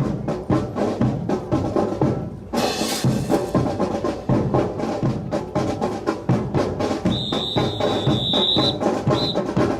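Marching drum cadence of snare and bass drums keeping a steady beat. A high whistle blows about seven seconds in for over a second, then once more briefly.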